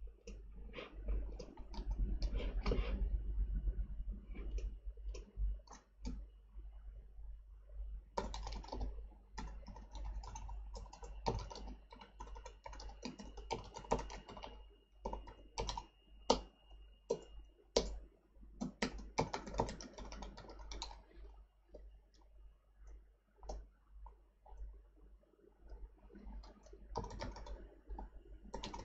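Typing on a computer keyboard: runs of rapid keystrokes broken by short pauses, the longest run in the middle.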